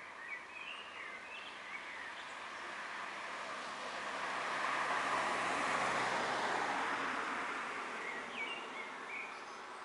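A vehicle passing on the street: road noise swells to a peak about five seconds in and fades away. A few short bird chirps come near the start and again near the end.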